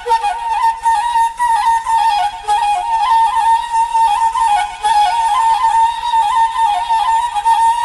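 Flute playing a continuous, ornamented melody in Sumatran traditional music, its notes held with quick dips and turns, from an old cassette recording.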